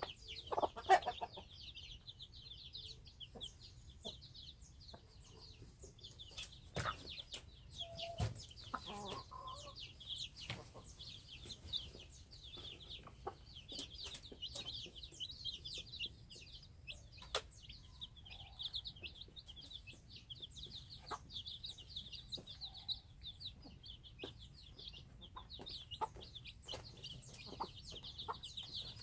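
A brood of Cheonggye chicks peeping in a constant high chorus, with the mother hen's low clucks breaking in now and then, loudest about a second in and again around eight to nine seconds. Scattered sharp clicks run through it.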